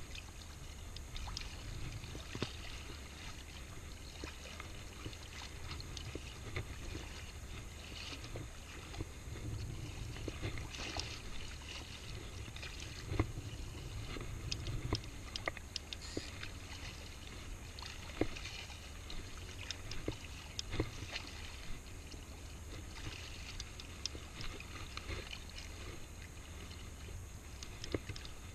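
Shallow seawater lapping and sloshing, with a steady low rumble underneath and scattered light ticks and small splashes at irregular intervals.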